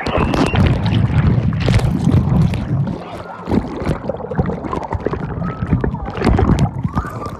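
Muffled underwater rumble of churning pool water and bubbles around a submerged camera, with knocks and sloshing against the housing.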